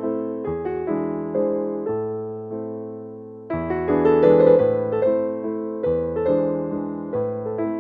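Background piano music: chords and melody notes. Near the middle one chord is left to fade for about a second and a half before the playing comes back louder.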